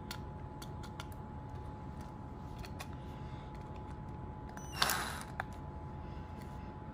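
Cordless drill giving one short spin of its bit against a Hot Wheels car's base rivet: a brief grinding whirr about five seconds in, followed by a click, over a faint steady hum.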